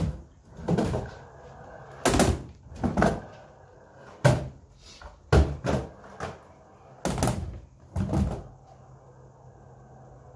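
Skateboard with Spitfire Soft Slider wheels on a concrete garage floor and plywood ramps: a string of sharp knocks and clacks of the board landing and hitting, roughly one a second, with rolling between. The knocks stop about eight seconds in.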